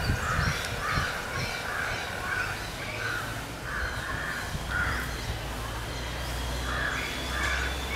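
Repeated harsh bird calls, about one to two a second with a short break before the last few, over a low steady hum.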